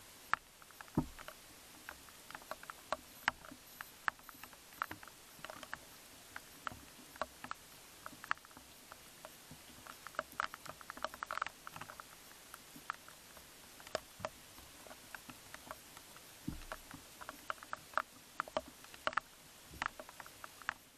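Muntjac deer feeding and stepping through grass: faint, irregular clicks, ticks and rustles with the odd dull thump, over a steady hiss.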